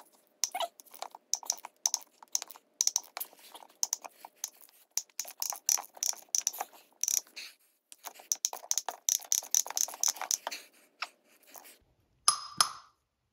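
Ratchet wrench clicking in rapid, irregular runs as it is worked back and forth on the forcing screw of a pulley puller, pressing a pressed-on pulley off a power steering pump shaft. The clicking pauses briefly a little past the middle, and a short, louder knock comes near the end.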